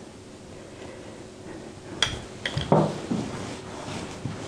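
Kitchenware being handled: faint room noise at first, then from about two seconds in a few sharp clinks and a louder, duller knock, as a glass jam jar and spoon are put down and a ceramic baking dish is handled.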